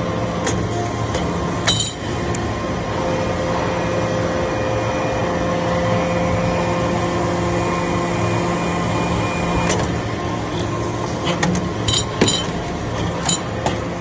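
Hydraulic metal-chip briquetting press running, its power unit giving a steady hum with held tones while the ram compresses the chips. One tone cuts off with a click about ten seconds in, and sharp metallic clinks and knocks follow over the last few seconds as the pressed briquettes are pushed out.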